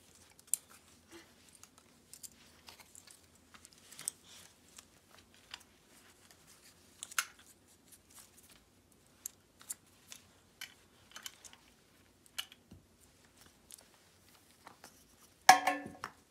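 Scattered light clicks and snips of small objects being handled, irregular and fairly quiet, with a brief loud pitched cry or squeak near the end.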